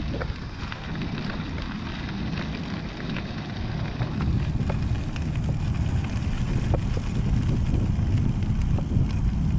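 Steady low rumble of wind buffeting the microphone, mixed with tyre and road noise from a recumbent trike rolling along a trail, growing slightly louder, with a few faint clicks.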